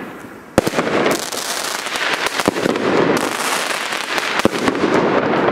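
Pyroland shell-tube fireworks (Bombenrohre) firing: sharp bangs about half a second in, again around the middle and near the end, with a steady rush of noise between them.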